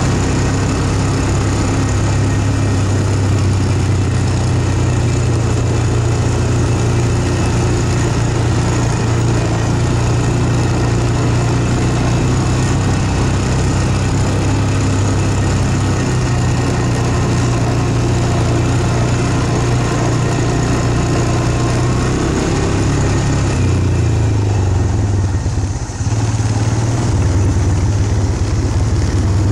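A vehicle's engine running steadily with a low, even hum, as it moves along. Near the end it eases off for a couple of seconds, then picks up again.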